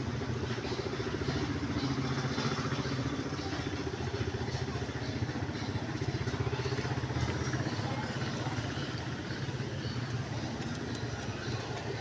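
Steady low rumble of a motor vehicle engine running nearby, holding an even level throughout.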